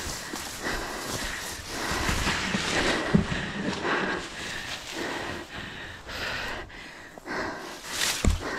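A tracking dog breathing and sniffing close up while it pushes through long grass and scrub, with the vegetation rustling and brushing past. Two knocks stand out, one about three seconds in and one near the end.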